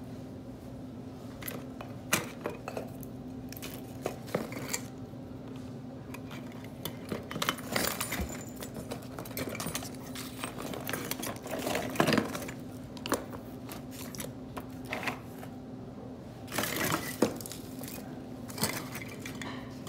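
Christmas ornaments and decorations being rummaged through by hand: irregular clinks, knocks and rattles of glass ball ornaments and figurines shifting against each other, over a steady low hum.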